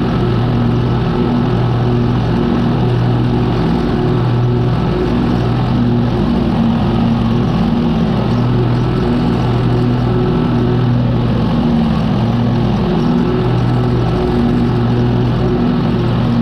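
Exmark Turf Tracer walk-behind lawn mower's engine running steadily under load while cutting grass, a loud hum that swells and eases slightly every second or two.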